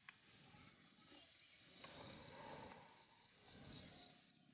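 Faint, steady high-pitched chirring of insects such as crickets, with a couple of soft clicks.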